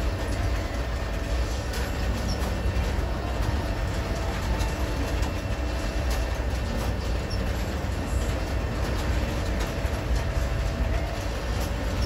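Freight train of gondola cars rolling past: a steady low rumble of steel wheels on rail, with scattered short clicks.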